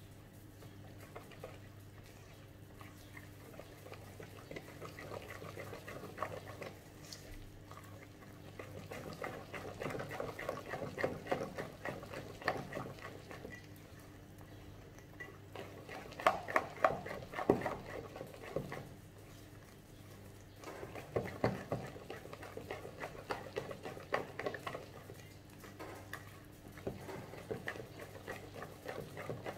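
Wire whisk stirring a thick whole-wheat flour and milk batter in a stainless steel bowl, its wires clicking and scraping rapidly against the metal in bursts of a few seconds with short pauses between. A low steady hum runs underneath.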